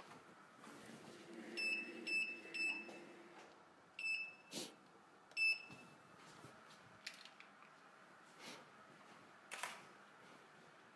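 Five short electronic beeps from a studio light's control buttons as its power is adjusted down: three about half a second apart, then two more. Also a couple of sharp clicks.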